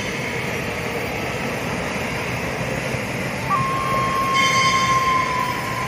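Passing train, a steady rumble and rail noise with a stretch of higher rattle a little past the middle. About three and a half seconds in, a single held flute note of background music comes in and carries on.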